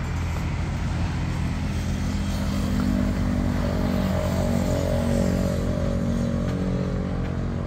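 A motor vehicle engine running steadily nearby, a little louder through the middle.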